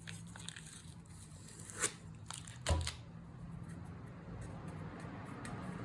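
Label sticker being peeled and scratched off the back of a new circular saw blade: faint tearing and scraping, with two sharp ticks, a little under two seconds in and near three seconds in, over a low steady hum.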